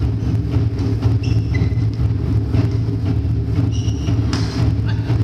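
A steady low rumble underneath a badminton rally: sneakers squeak briefly on the wooden court floor twice, and a racket strikes the shuttlecock sharply near the end.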